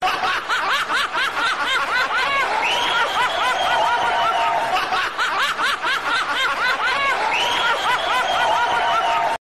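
Very high-pitched giggling laughter, a fast run of rising-and-falling giggles ending in a longer drawn-out note. The same run plays twice, about five seconds apart, and cuts off abruptly just before the end.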